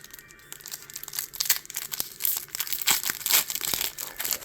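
Foil Pokémon booster pack wrappers crinkling in the hands, in quick irregular crackles.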